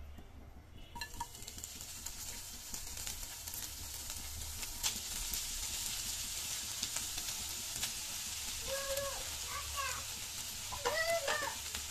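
Mashed taki fish frying in hot mustard oil in a nonstick pan. A steady sizzle sets in about a second in as the fish goes into the oil, with the scrape and tap of a spatula stirring it.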